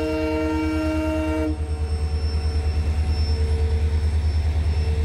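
A WDP-4B diesel locomotive's horn sounds a chord of several steady tones and cuts off about a second and a half in. Under it and after it, the locomotive's diesel engine runs with a steady, rapid low throb.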